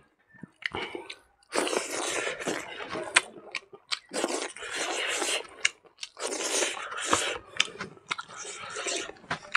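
Close-miked chewing of a mouthful of rice and food eaten by hand, with crunching and sharp wet mouth clicks in three long stretches.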